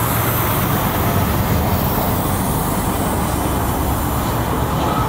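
Passenger train running past at close range, its coaches followed by the C11 steam locomotive: a steady rumble of steel wheels on the rails.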